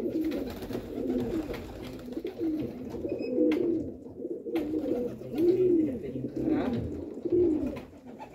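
Several domestic pigeons cooing, one low coo after another and overlapping, each rising and falling in pitch.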